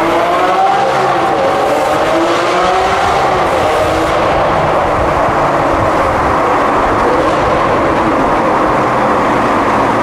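Lamborghini Aventador's V12 engine through a Novitec Torado exhaust, heard from inside the cabin under acceleration. Its note rises in pitch twice in the first three seconds, then holds a steady, loud drone.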